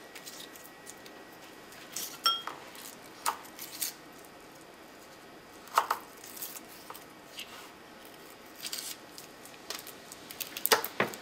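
Scattered taps and clicks of garlic cloves and a kitchen knife on a wooden cutting board. There is one short ringing clink about two seconds in and a quick run of louder knocks near the end.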